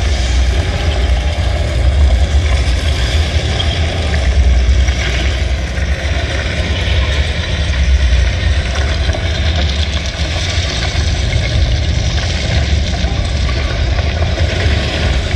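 Soundtrack of an outdoor 3D projection-mapping show played over large speakers: a loud, deep, steady rumble with a noisy hiss above it and no clear tune.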